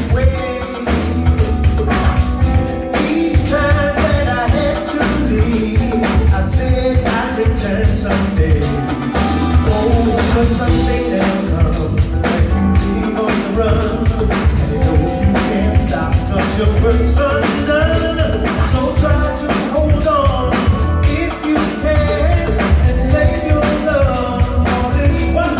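Live funk band playing a song: drum kit, bass and keyboards, with strong low bass and a steady drum beat, and some singing over them.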